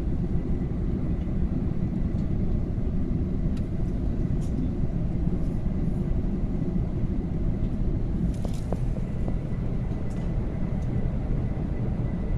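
Airbus A380 cabin noise in flight: the steady low rumble of engines and rushing air heard from inside the passenger cabin.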